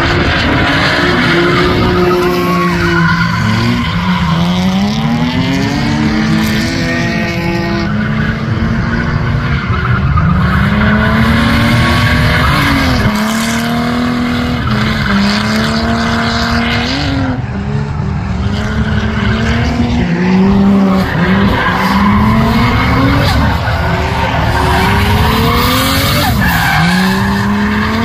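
Drift cars sliding sideways through a corner, their engines revving up and down again and again while the tyres squeal and skid.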